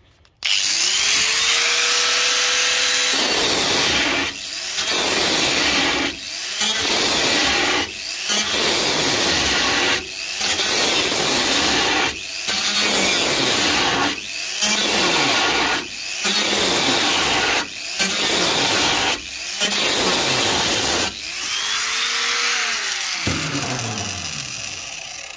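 An electric angle grinder with a thin cut-off disc spins up, then cuts sheet-steel floor panel in a series of passes, its noise dipping briefly every couple of seconds as the disc is lifted and set back on the metal. Near the end it runs free for a moment, is switched off and winds down with falling pitch.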